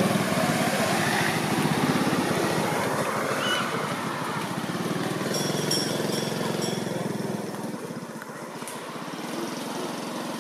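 An engine running, loudest at the start and fading away over the following several seconds.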